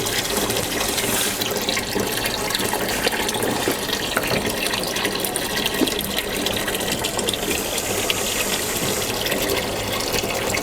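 Tap water running steadily through a hose into the wash tub of a semi-automatic top-loading washing machine, filling it for the wash.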